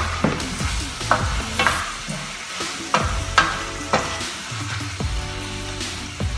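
Shrimp, squid and zucchini sizzling in a stainless steel frying pan while a wooden spoon stirs them, scraping and knocking against the pan several times.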